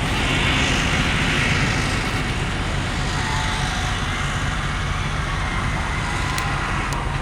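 Steady engine and traffic noise, a continuous rumble, a little louder in the first couple of seconds.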